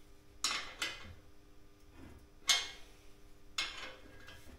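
Bicycle tyre and wheel rim being worked by hand during a tube change: four sharp clinks and snaps about a second apart, the third the loudest, each with a brief ringing tail.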